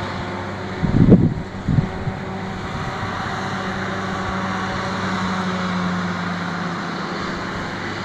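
Crawler dragline crane's diesel engine running steadily with a low hum as it winches its bucket up out of the water, with a couple of low thumps about a second in.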